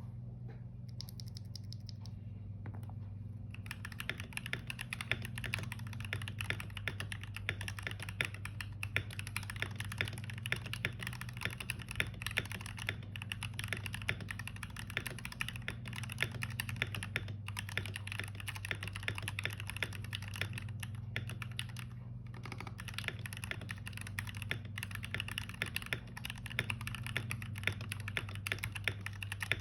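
Fast, continuous typing on a cheap computer keyboard, a dense run of key clicks that starts a few seconds in and pauses briefly now and then, over a steady low hum.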